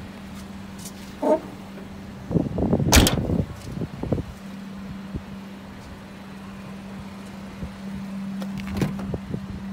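Tailgate of a 2016 Subaru Forester pulled down and slammed shut once, about three seconds in, over a steady low hum.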